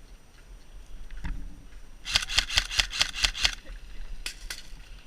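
Airsoft gun firing a quick string of about nine shots, roughly seven a second, followed by two single shots a moment later.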